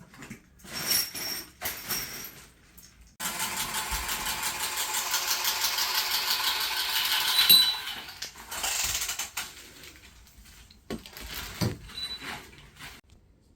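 Plumbing work on metal fittings: metal tools and parts clinking, then a steady rasping mechanical noise for about four and a half seconds that ends in a sharp metallic clink, followed by scattered knocks.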